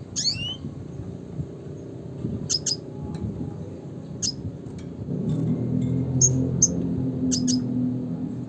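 Red siskin calling: short high chirps a second or two apart, the first a note that falls in pitch. A low hum runs underneath, growing louder about halfway through.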